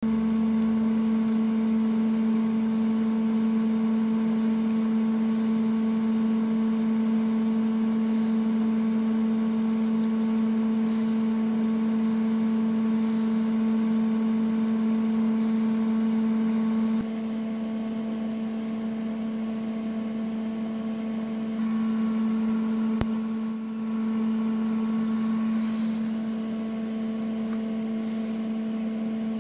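A steady machine hum at one fixed pitch with overtones and a faint high whistle, from the CNC-converted milling machine's motor and electrics. It drops a little in level about halfway through and dips briefly later on.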